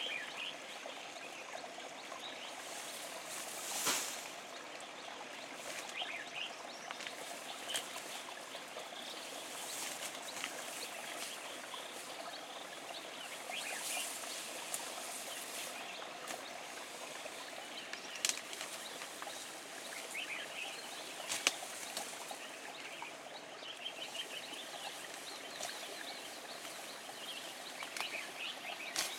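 Quiet outdoor background noise with faint, scattered bird chirps and a few soft clicks.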